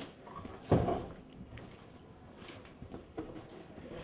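A heavy cardboard box of canned food thumps down about a second in, followed by lighter knocks and the rustle of boxes being handled and stacked.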